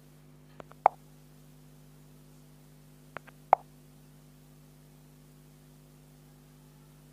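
Two short, plopping taps about two and a half seconds apart, each with a faint click or two just before it, over a steady low hum. They fit fingertip taps on a smartphone touchscreen while navigating the app's save-to-gallery menus.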